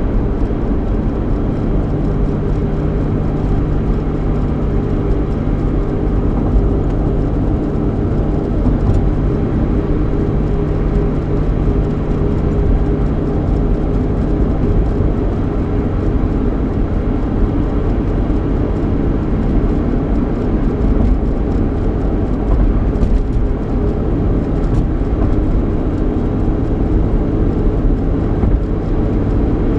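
Road noise and engine hum inside the cabin of a 3.8-litre V6 Ford Mustang on the move: a steady low rumble with an engine drone that weakens about two-thirds of the way through, and a few faint ticks.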